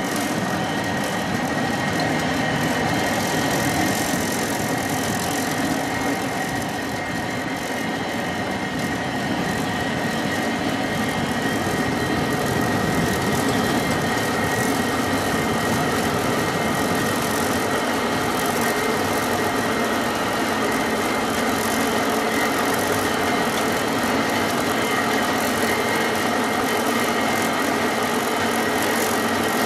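Cable car ride: the steady running noise of the car on its cable, with a constant high whine over it.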